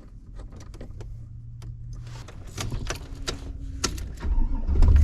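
A few light clicks and taps, then the 2003 GMC Yukon's V8 engine starts about four seconds in and runs at a steady idle.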